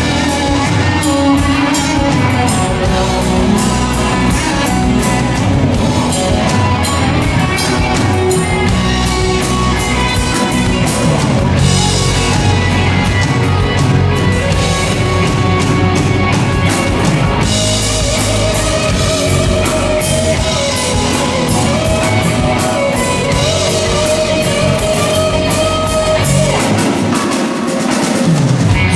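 Rock music with a driving drum kit and guitar; the deep bass drops out for about a second near the end.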